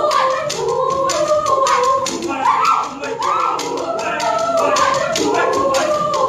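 Show choir singing in harmony over a steady beat of sharp hand claps, about three to four a second.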